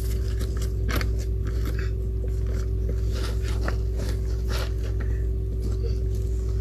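Hands digging and scraping through loose soil in a potato grow bag, making scattered short scratchy scrapes and rustles. Under them runs a steady low hum.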